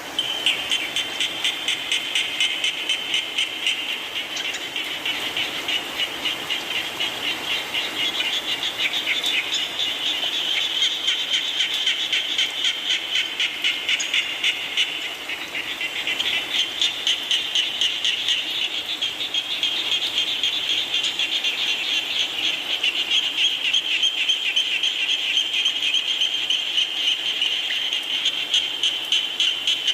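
A chorus of frogs calling in rapid pulsed trills that swell and fall about twice a second, over the even patter of rain.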